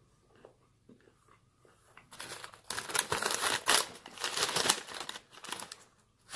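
Paper food sleeve crinkling and rustling loudly as it is handled, starting about two seconds in.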